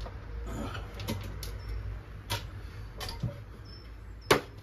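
Scattered clicks and knocks of hand tools and a valve spring compressor being worked on a small motorcycle cylinder head, with one sharp, much louder click about four seconds in.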